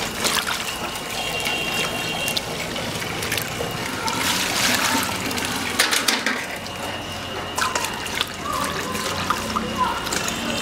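Water splashing and sloshing in a stainless steel basin as chillies are rubbed and rinsed by hand, with water running from a tap into the basin. Scattered small knocks and splashes come through over the running water.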